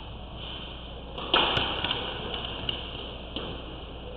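Squash ball hits during a rally, racket on ball and ball off the walls: one loud sharp crack a little over a second in, followed by several lighter knocks.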